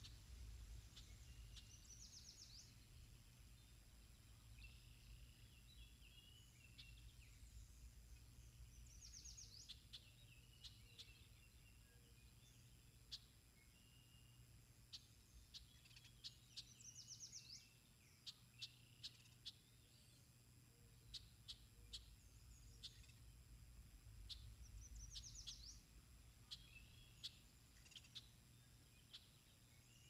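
Faint songbird song: a short, fast trilled phrase repeated about every eight seconds, with scattered sharp ticks in between, over a steady low rumble.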